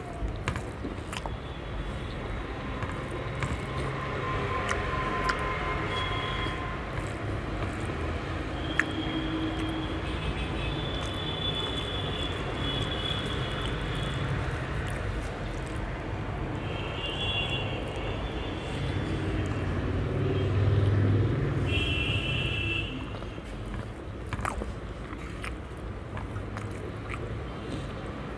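Fingers mixing rice and chicken curry on a steel plate, with a few small clicks, over a steady low rumble that swells about two-thirds of the way in. A few brief high tones come and go.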